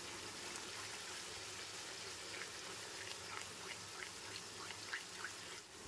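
Spiced tomato-onion masala with yogurt just stirred in, sizzling and bubbling faintly in a nonstick pan as a wooden spatula works it, with scattered small pops.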